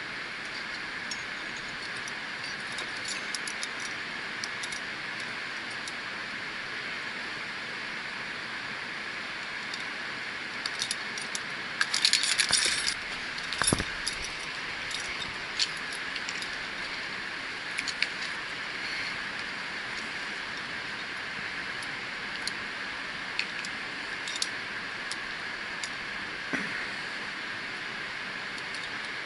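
Metal climbing gear, carabiners and quickdraws on a harness, jangling and clinking as the climber moves, in scattered clicks with a loud burst of clinking about twelve seconds in, over a steady background hiss.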